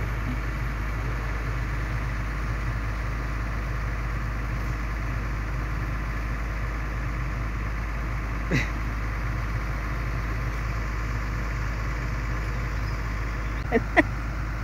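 Komatsu PC200 excavator's diesel engine running steadily, an even drone. A brief sound a little past halfway and two short sharp sounds near the end stand out over it.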